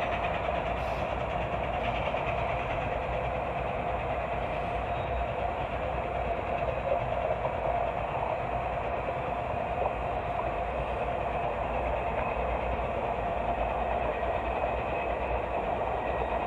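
Passenger cars of a steam-hauled train rolling past on the rails: a steady, even rumble and rush of wheels on track that holds level throughout.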